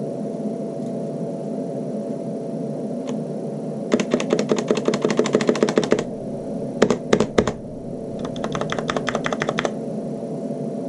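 Corsair K70 LUX RGB mechanical keyboard with unlubricated Cherry MX Red switches and thick double-shot PBT keycaps being typed on, resting on a microfiber cloth. A fast run of keystrokes comes about four seconds in, a few heavier clacks follow around seven seconds, and another quick run comes near nine seconds, over steady low background noise.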